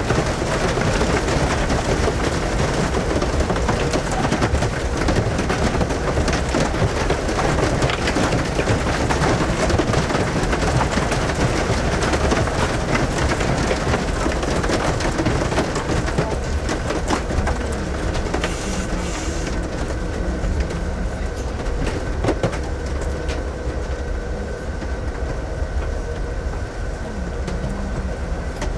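Rain and hail pelting a passenger train's window, many sharp hits over the steady rumble of the moving train car. The hits thin out and the sound grows duller in the second half.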